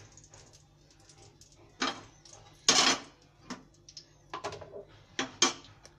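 Kitchen clatter from a plate and a frying pan with a metal spatula being handled on a steel stovetop: several separate sharp clinks and knocks, the loudest about three seconds in.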